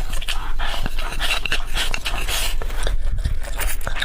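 Close-miked eating of spicy beef noodle soup: loud wet slurping and breathing in, mixed with many small mouth clicks and chewing.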